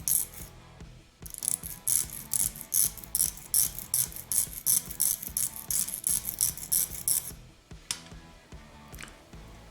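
A hand file rasping back and forth across a thin copper strip held in a vise, in quick even strokes about three to four a second. It stops about seven seconds in, with a couple of single strokes after.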